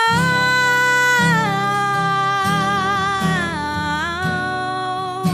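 Female voice holding one long sung note on "help me," dipping slightly in pitch a couple of times, over strummed acoustic guitar chords.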